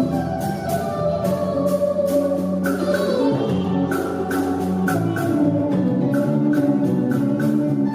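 Band music with a sustained organ-like keyboard over a steady percussion beat, and no singing.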